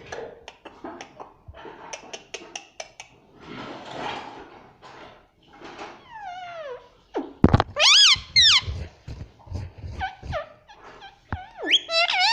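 Pet parrot calling. A few seconds of scattered clicks and rustling give way to whistled calls that glide down in pitch. Two loud calls come about eight seconds in, then rising-and-falling whistled calls near the end.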